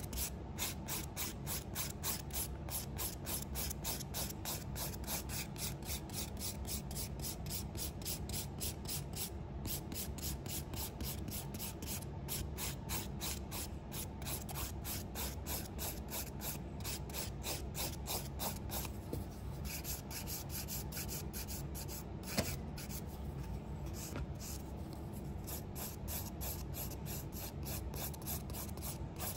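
Hand nail file rasping back and forth across a sculpted acrylic nail in quick, even strokes, about three a second, shaping and thinning the acrylic up to the nail's high point. One sharp click about 22 seconds in.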